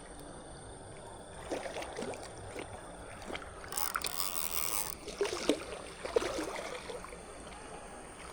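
Water splashing and sloshing in irregular bursts, with a louder, hissing splash about four seconds in.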